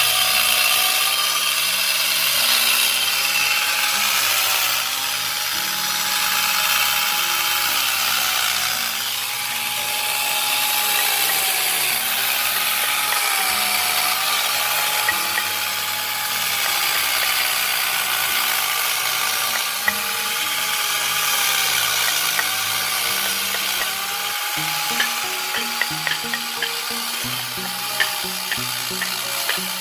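Electric power tool cutting into wood, its motor whine dipping again and again as it bites in and recovering as it eases off, over a rasping hiss. A few small ticks sound near the end.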